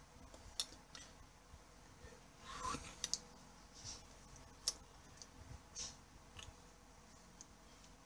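Faint, scattered clicks and a short rustle about two and a half seconds in, from hands, skin and clothing moving while signing.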